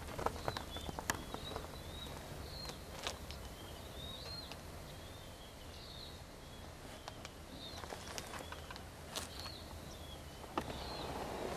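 Faint bird calls: short high chirps repeating every second or so over quiet open-field ambience, with a few light clicks. The rustling noise grows louder near the end.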